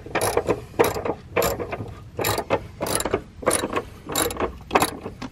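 Socket ratchet clicking in repeated short back-strokes, about eight bursts at an even pace, while a deep socket backs out a 13 mm bumper bolt.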